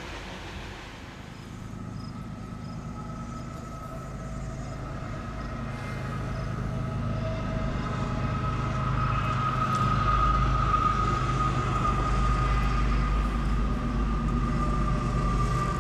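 CSX freight train's diesel locomotive approaching, its low engine rumble growing louder for about ten seconds and then holding, with a steady high whine above it.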